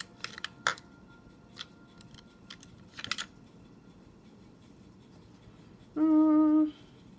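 Small clicks and taps of makeup tools and containers being handled, with a louder rattle of clicks about three seconds in. About six seconds in comes a short steady closed-mouth hum, held for under a second, the loudest sound.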